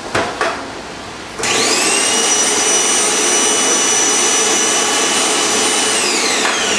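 Bagless upright vacuum cleaner switched on after a couple of knocks, its motor whining up to speed and running steadily, then switched off near the end, the whine falling as it winds down.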